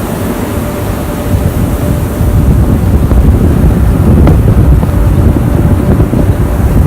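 Low rumbling wind noise buffeting the microphone, growing louder about two seconds in.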